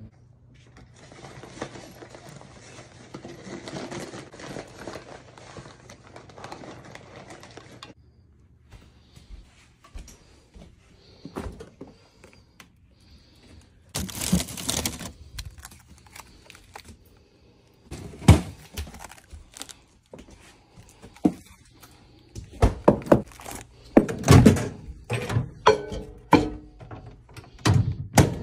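A steady hiss for several seconds, then a run of knocks, clicks and thuds from things being handled, coming thickest in the last few seconds.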